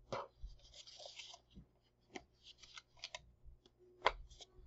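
Faint handling sounds of a rubber band being stretched and doubled over around a fleece-wrapped cup: a few small clicks and snaps, with a short rustle about a second in.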